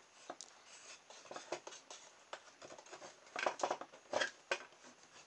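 Light clicks and taps of hands fitting fishing line and a mousetrap's wire arm onto a homemade mousetrap car with a metal DVD-drive chassis. The clicks are scattered and come thickest between about three and a half and four and a half seconds in.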